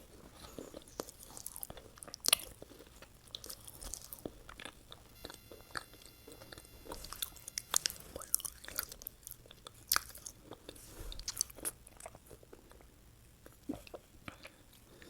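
Close-miked eating: a person biting and chewing fast food with irregular crisp crunches and wet mouth clicks, the sharpest crunch about two seconds in.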